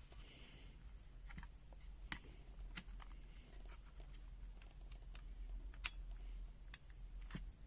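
A few faint, scattered light clicks and taps, irregularly spaced, over a low steady hum.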